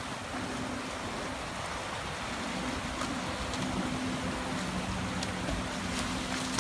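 Fast, churning river water rushing steadily, with a low steady hum underneath.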